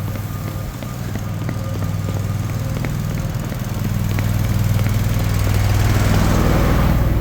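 Engine of a Reinert trailer-mounted shotcrete pump running steadily under load, pumping concrete through a long rubber hose line, with a low hum that grows louder about four seconds in. A hissing rush rises over it near the end.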